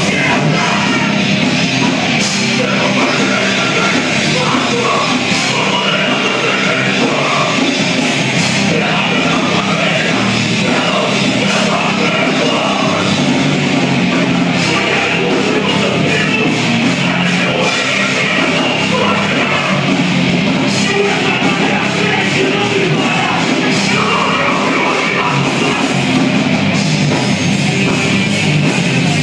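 Hardcore band playing live: distorted electric guitars, bass and drums in a dense, loud, unbroken wall of sound, with shouted vocals.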